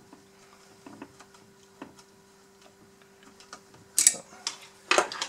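Hands handling the plastic body parts of a model excavator. A few faint clicks come first, then two louder clattering clacks about four and five seconds in, over a faint steady hum.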